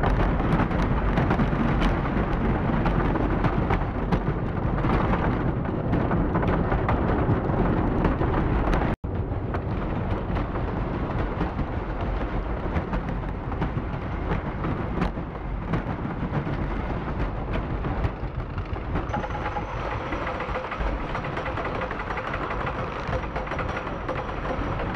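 Loud rumbling sound effects from a planetarium dome show's soundtrack played over speakers, heavy in the low end and fairly steady. The sound cuts out for an instant about nine seconds in.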